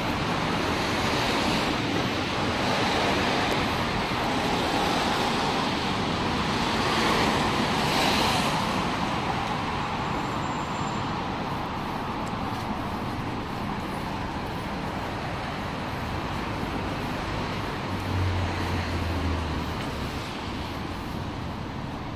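City traffic on rain-wet roads: a steady hiss of tyres on wet asphalt, swelling loudest about eight seconds in as vehicles pass. A low engine hum joins for a second or two near the end.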